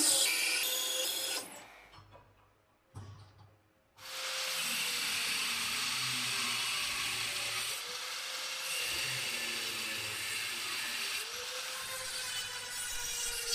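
A drill press bit boring into a brass bar, fading out after about a second and a half. From about four seconds in, a power tool grinds steadily into the brass bar held in a vise, its motor pitch wavering under load.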